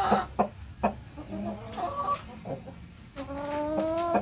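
Gold Laced Orpington chickens clucking and calling in the pen, with two short knocks in the first second. Near the end, one long call of about a second, slowly rising in pitch.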